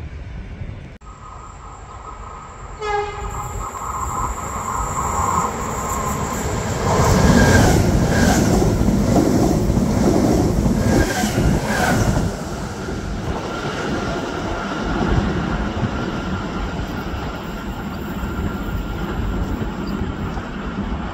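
Trenord ETR521 'Caravaggio' electric multiple unit: a short horn blast about three seconds in, then the train runs past close by with loud wheel and running noise, loudest from about seven to twelve seconds in. A steady high whine remains as it draws away.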